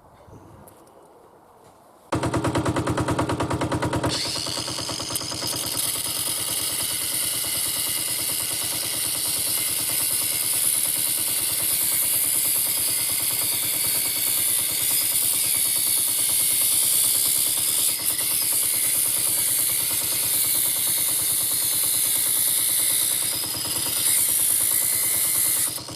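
Powerfab 125 mini digger's air-cooled diesel engine starting suddenly about two seconds in and running with a fast, even beat. A loud steady hiss joins it about two seconds later.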